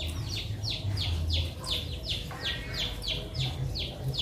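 Bird chirping rapidly and continuously: high, short peeps that each drop in pitch, about four a second.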